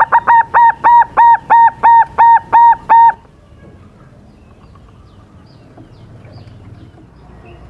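Young silver-morph zebra dove (perkutut) singing: a quick opening followed by a run of about nine short, evenly spaced cooing notes, about three a second, stopping about three seconds in.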